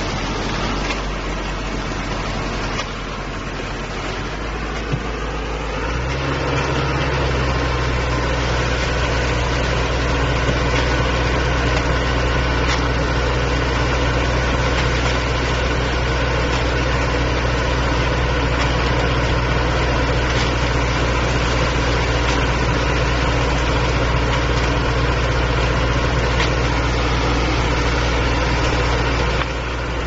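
Concrete mixer truck's diesel engine running steadily; about six seconds in it speeds up to a higher, stronger drone and holds it while the drum turns to discharge concrete down the chute.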